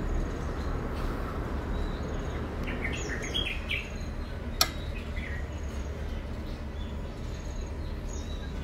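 Small birds chirping in the background over a steady low hum, with one sharp click about halfway through.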